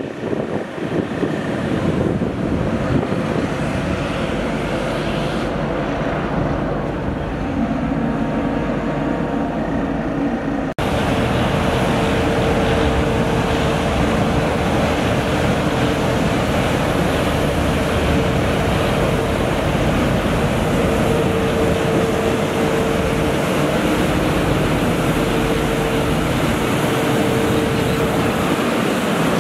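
Truck-mounted street sweeper (Mercedes-Benz Arocs 1833 chassis) at work, its engine and suction blower running steadily with a constant whine. About eleven seconds in, the sound jumps louder and brighter as the sweeper is heard close up.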